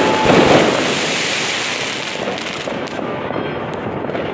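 Fireworks bursting overhead: loud bangs at the start and again about half a second in, followed by a dense crackle that dies away after about two seconds.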